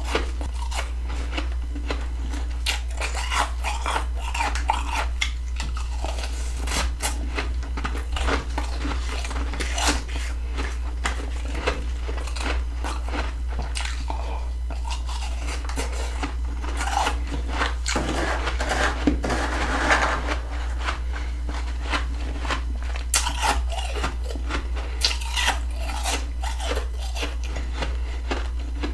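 Freezer frost being bitten and chewed close to the microphone: irregular crisp crunches and crackles of the icy frost between the teeth, over a steady low hum.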